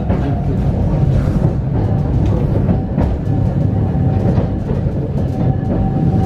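Iyotetsu streetcar running along street track, heard from inside the car: a steady low rumble with scattered clicks from the wheels on the rails.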